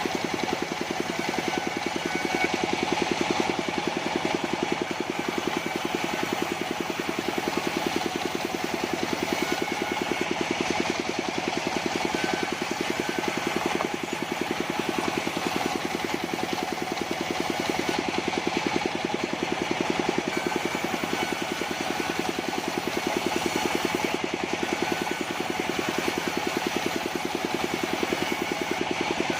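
A mobile sawmill's engine running steadily with a fast, even beat.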